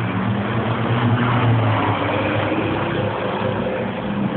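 Sports car engine accelerating past on the track, its pitch rising steadily, loudest about a second and a half in.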